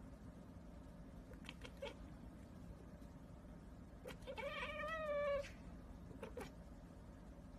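A domestic cat meowing once, a drawn-out meow about a second long, rising at the start and then held, a little past halfway through. A few brief faint sounds come before and after it.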